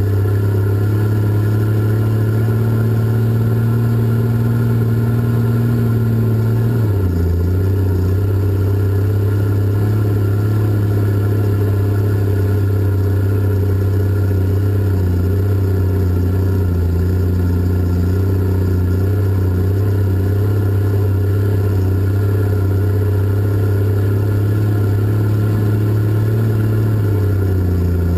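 Diesel engines of a Cat 627 scraper running steadily in the cab while hauling dirt. The engine note drops in pitch about seven seconds in and rises again near the end.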